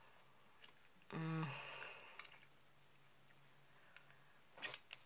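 Quiet eating sounds from a person eating small berries: a short hummed 'mm' about a second in, then a few soft mouth clicks and smacks near the end.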